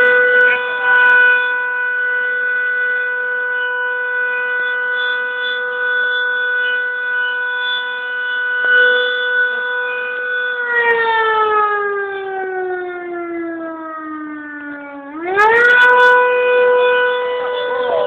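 Fire station siren sounding the traditional noon signal as one long, steady tone. About eleven seconds in its pitch sags slowly for about four seconds, then winds quickly back up to full pitch and holds.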